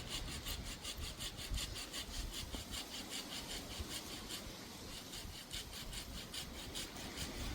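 Hand saw cutting through wood in quick, even back-and-forth strokes, about four or five a second.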